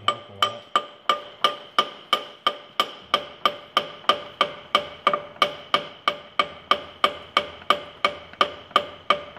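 Hammer striking steel in a steady, rapid rhythm of about three blows a second, each blow ringing metallically. It is beating loose a part rusted solid on a tractor's transmission.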